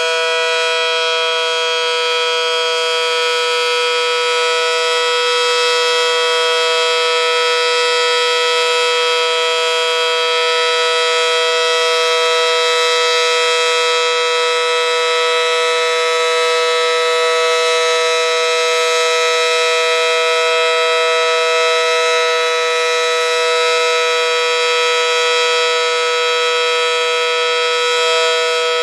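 Federal Sign & Signal Model 5T civil-defence warning siren, with its large 9/12-port chopper, sounding a steady two-note chord at full speed: the steady Alert signal, with no wail or waver.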